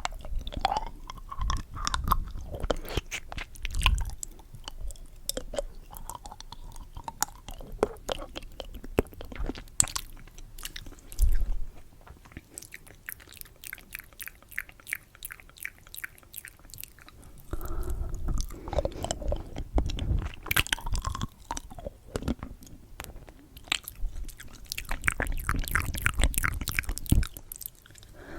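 Candy being chewed close to the microphone, with many sharp mouth clicks and crunches and louder stretches of chewing that come and go.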